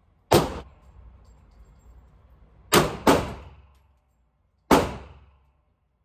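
Gunshots: four sharp shots, one shortly after the start, then two in quick succession a little under halfway in, then one more about two-thirds of the way through, each followed by a short echoing decay.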